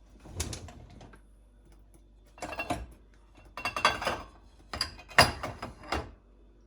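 Dishes and cutlery clattering as they are handled, in four bursts of clinks and knocks a second or so apart.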